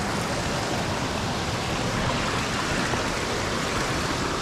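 Creek water rushing steadily over boulders, an even hiss and rumble with no breaks.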